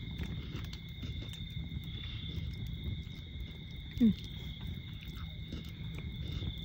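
Campfire burning: a steady low rumble with faint scattered crackles. About four seconds in, a person gives one short falling "mm" while tasting a s'more.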